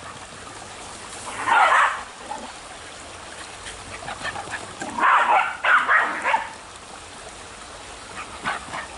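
A small dog whining in short high bursts: once about a second and a half in, then twice in quick succession around five to six seconds in.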